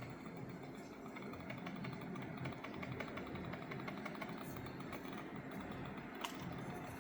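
Logitech G Pro X2 Superstrike wireless gaming mouse buttons clicked in a fast, even run of light clicks for a clicks-per-second test, with one sharper click near the end, over a steady low hum.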